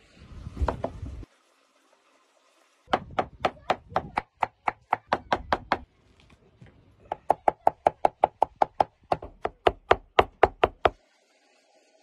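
Large kitchen knife chopping herbs into minced meat on a wooden cutting board: two fast runs of sharp knocks, about five strokes a second, with a short pause between them. A brief low rushing noise comes first.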